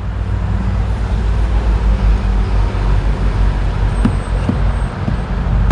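Steady low hum of a running vehicle engine, with a few faint clicks about four seconds in.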